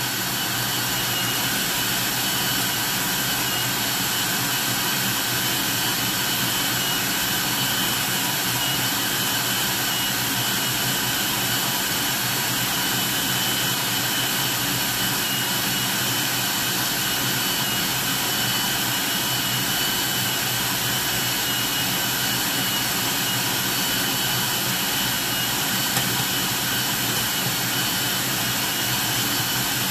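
Bowl-lift stand mixer running steadily, its wire whisk beating egg whites in a stainless steel bowl: a constant motor whir with a thin high tone on top. The whites are nearly at stiff peaks as egg yolks are beaten in.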